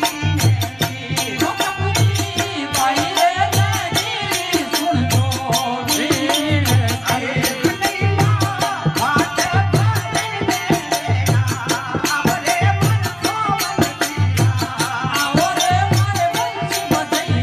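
Rajasthani devotional bhajan performed live: a man's voice singing a wavering melodic line over a harmonium's held reed chords. A drum keeps a steady low beat of a little more than one stroke a second, with sharp clicking percussion over it.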